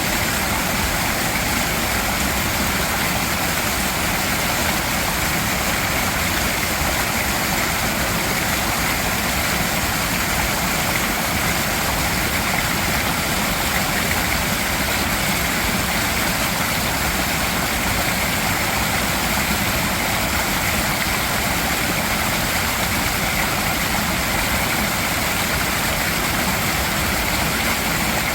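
Mountain stream water rushing and splashing over rocks: a steady, dense roar that holds unchanged throughout.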